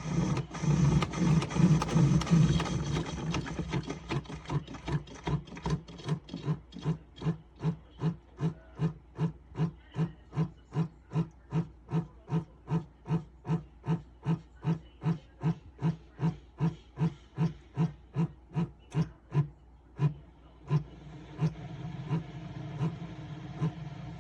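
Single-serve coffee maker brewing: its water pump pulses evenly about two and a half times a second over a steady hum, after a louder, noisier first few seconds. The pulses stop about twenty seconds in, leaving the hum.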